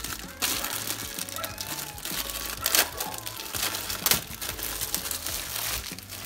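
Clear plastic bag crinkling and crackling as hands unwrap a figurine from it, with a few louder crackles along the way.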